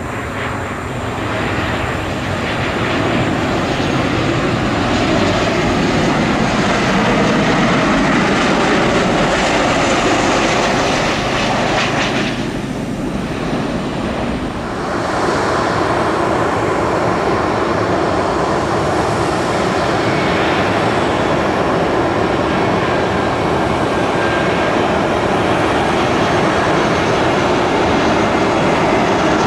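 Jet airliner engines: a Boeing 737 landing, its engine noise swelling as it comes over the runway and rolls out. About halfway through the sound cuts to the steady engine noise of an Airbus A320 on final approach.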